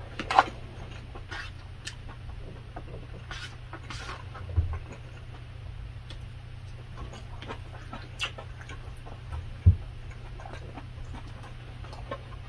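Close-miked eating sounds: chewing and wet mouth noises of someone eating rice and stew, with scattered clicks of a plastic spoon and fork against a plastic takeout tray and two dull thumps.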